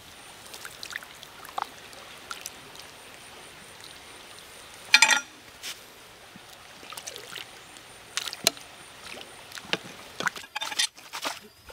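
A shallow stream runs with a steady hiss. Over it come scattered knocks and scrapes of a machete blade against a metal pot, the loudest a short rattling scrape about five seconds in.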